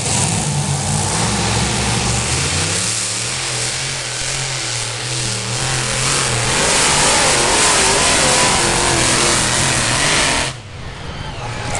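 Super Stock pulling tractor's turbocharged diesel engine running at full throttle while dragging the weight sled, its pitch climbing a few seconds in and the rushing turbo noise growing louder through the pull. The sound drops away abruptly near the end.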